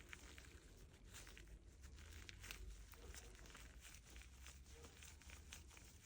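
Faint, irregular small clicks and rustling from hands working the freed plunger pistons of an outboard's high-pressure fuel pump, over a low steady hum.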